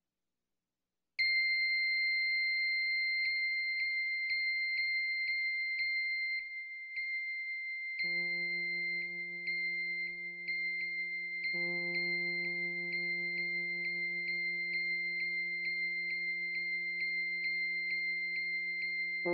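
Synthesizer music: a steady high electronic tone with a light recurring pulse starts about a second in, and a low sustained droning chord joins it about eight seconds in.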